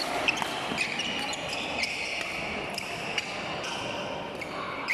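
Badminton rally: sharp racket strikes on the shuttlecock every second or so, with shoes squeaking briefly on the court floor.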